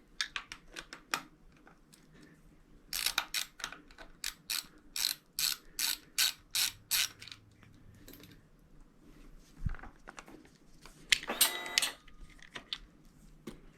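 Ratchet clicking in short strokes as screws on a motorcycle's right-hand handlebar switch housing are backed out, with a faster rattling run about eleven seconds in.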